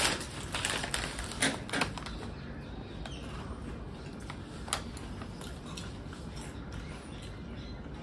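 Crisp crackling clicks from potato chips and their packet, a quick cluster in the first two seconds and one more near five seconds in.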